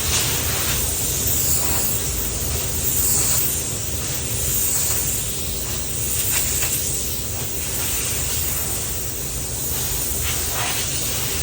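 Compressed air hissing steadily from an antistatic (ionizing) air blow gun passed over the panel to clear static and dust before spraying, with a few brief stronger puffs over a constant low rumble of booth ventilation.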